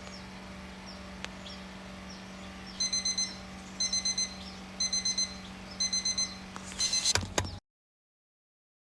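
Digital alarm clock beeping in quick groups of about four beeps, one group a second, over a steady low hum. Near the end there is a short clatter, then the sound cuts off abruptly to dead silence.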